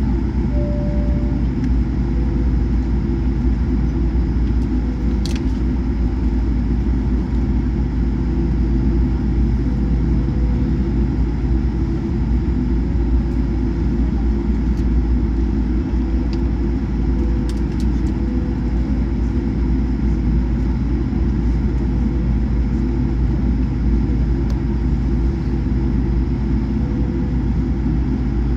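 Steady low rumble inside the cabin of a Boeing 787-9 taxiing on the ground, with a few faint clicks now and then.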